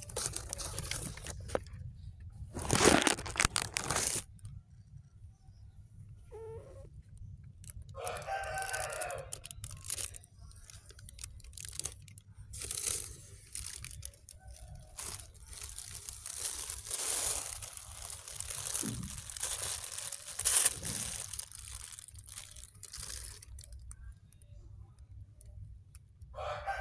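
A plastic bag crinkling and rustling as cats nose at it, with loud crackling close to the microphone a few seconds in. Two drawn-out animal calls stand out, one about eight seconds in and one near the end.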